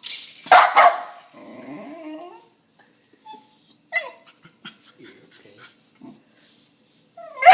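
A dog barking and whimpering in short bursts: a loud bark about half a second in, a lower rising whine after it, then scattered small yips, and another loud bark at the end.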